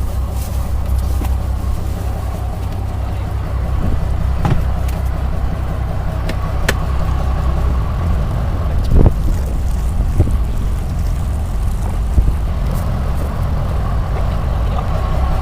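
A motor engine running steadily, a constant low drone, with a few short knocks over it.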